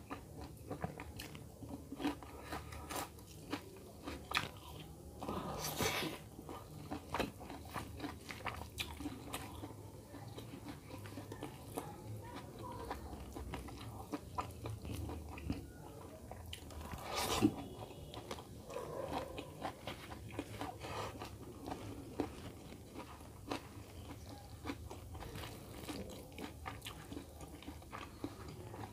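Close-miked chewing and biting of chicken curry and rice: a run of wet mouth clicks and smacks, with a couple of louder crunches.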